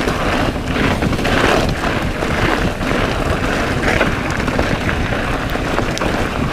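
Mountain bike descending fast on a dirt track: tyres rolling over loose dirt and the bike rattling with frequent knocks over bumps, under heavy wind on the camera's microphone.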